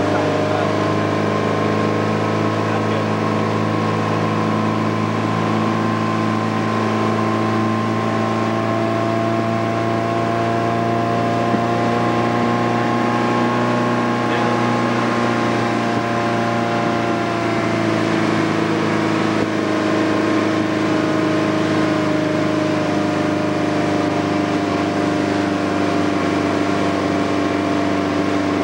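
Motorboat engine running steadily at towing speed, a constant hum of several tones whose pitch drifts slightly, over the rush of water from the wake.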